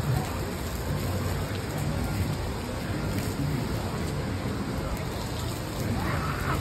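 Splash-pad water jets spraying and pattering onto the wet play surface, a steady hiss like rain.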